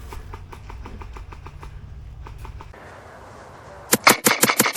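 Krytac LVOA-S airsoft electric rifle firing a quick string of about six sharp shots near the end. Faint rapid ticking comes before it.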